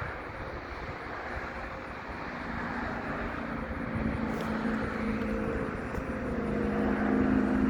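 Outdoor traffic noise, with a vehicle's engine hum drawing nearer and growing louder over the second half.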